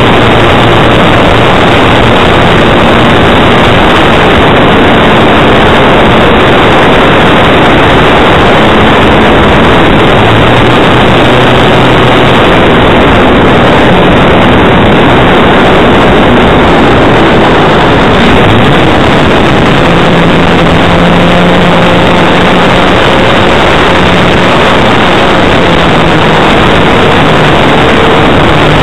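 Overdriven wind rush and propeller noise on the microphone of a small camera under the wing of a flying radio-controlled model plane, a steady loud rushing with a faint motor hum that shifts in pitch now and then.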